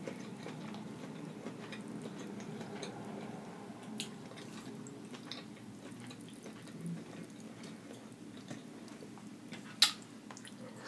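Soft dripping and swishing as food is dipped and stirred in a glass bowl of seafood-boil sauce, over a steady low room hum, with scattered faint ticks. A single sharp click about ten seconds in, as a bite is taken.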